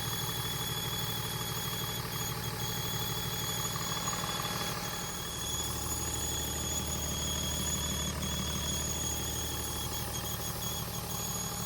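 Car engine idling with a steady high-pitched squeal riding over the low engine rumble, broken by a few brief dropouts. The uploader links the squeal to an exhaust leak at the manifold gasket.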